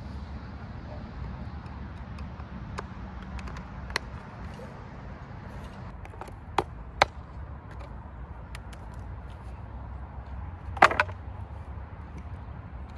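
A few sharp clicks and knocks of hard objects being handled, the loudest a short clatter about eleven seconds in, over a steady low rumble.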